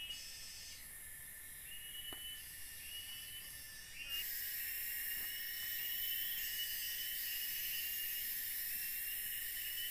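Tropical forest insect chorus: a steady high-pitched buzzing hiss, with a short, slightly rising call repeated about once a second. It grows louder about four seconds in.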